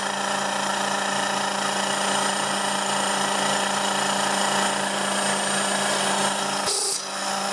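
Sanden car air-conditioning compressor running steadily, belt-driven by an electric motor on a variable-frequency drive, a constant hum with a stack of steady tones. A short hiss near the end.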